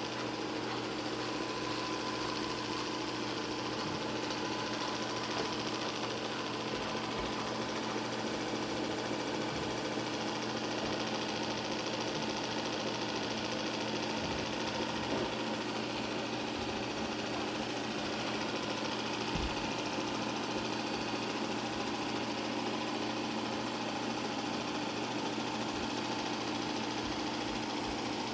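Shark IQ self-empty base (RV1000S series) running its suction motor to pull debris out of the docked robot vacuum's dustbin: a steady, loud motor hum with a hiss of rushing air.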